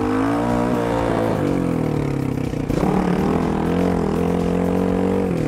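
Kayo K1 250 enduro motorcycle's single-cylinder four-stroke engine running under throttle while riding. Its pitch rises, dips about a second and a half in, climbs again and then holds steady.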